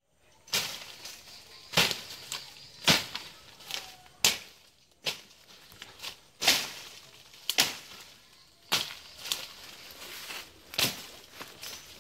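Footsteps in flip-flops crunching through dry leaf litter and twigs, about one step a second, each a sharp crackle.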